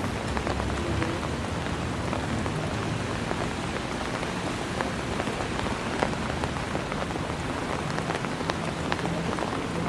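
Steady rain falling on wet paving, a constant hiss sprinkled with sharp ticks of individual drops.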